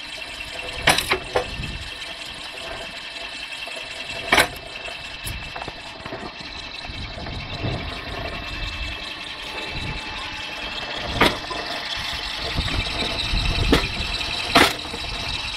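Homemade electric-motor-driven mechanical log splitter running steadily through its belt pulley and gearbox, with several sharp cracks as the wedge splits logs.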